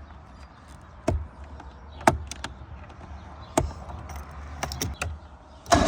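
Scattered sharp clicks and knocks, about six over several seconds, over a low steady rumble, then a sudden loud rushing burst near the end.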